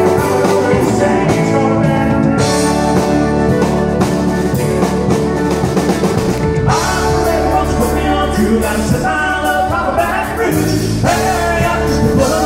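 Live country-rock band playing: electric guitar, keyboard and drum kit, with a man singing lead into a microphone.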